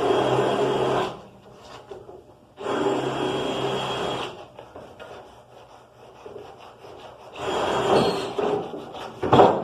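Power tool abrading the paint off a sheet-metal tool box, running in two bursts that start and stop sharply, with a steady motor hum under the grinding. Near the end comes a shorter stretch of scraping and one loud knock on the metal.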